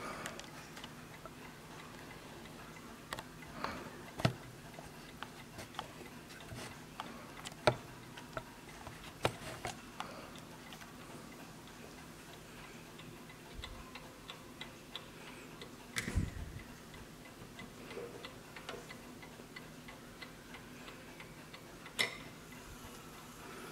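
Antique German B.W.L. mantel clock ticking faintly, with scattered sharper clicks. Near the end there is a louder click as the minute hand is pushed round by hand.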